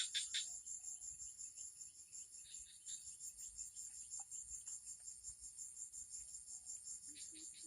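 Crickets chirping in a steady, rapid, high trill, with a few short higher calls at the start and again near the end. A low note repeats about four times near the end.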